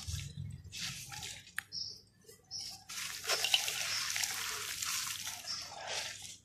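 Handfuls of wet, gritty red dirt and crushed clay-pot pieces squeezed and dropped back into a basin of muddy water, splashing and trickling. There is a short splash about a second in and a longer run of splashing from about three seconds in, as the dirt streams out of the hands.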